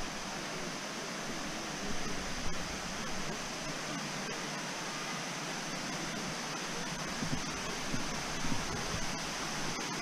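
Steady rush of a waterfall, an even hiss of falling water, with faint voices of people now and then in the later part.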